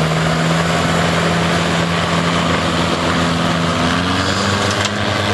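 Garden tractor's engine running hard under load as it pulls a weight sled, its pitch stepping up a little about four seconds in.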